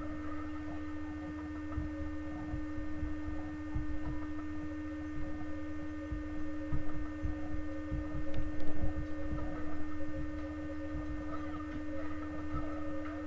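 A steady electrical hum with a strong single tone, and irregular low bumps under it.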